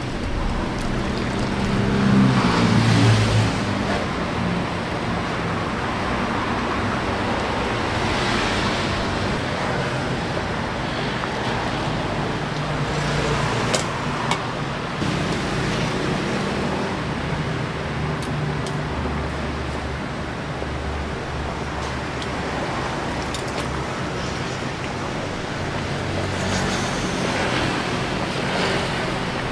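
Street ambience with steady road traffic, engines swelling as vehicles pass, and a couple of sharp clicks about halfway through.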